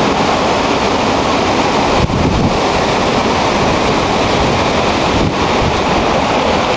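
Strong hurricane wind blowing steadily through the trees and buffeting the microphone.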